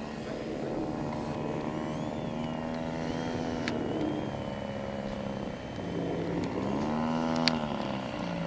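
Engine and propeller of a radio-controlled La-7 scale model airplane in flight: a steady buzzing drone that grows louder, rising and then falling in pitch about seven seconds in as the plane passes.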